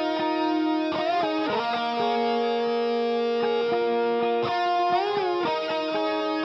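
Music soundtrack: an electric guitar with some distortion plays held notes, with notes bending in pitch about a second in and again around five seconds.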